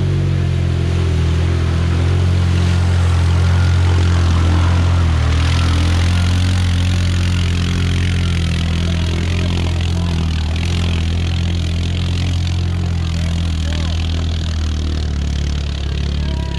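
A vehicle engine running loud and steady at low speed, without revving, with a rush of noise that builds about five seconds in.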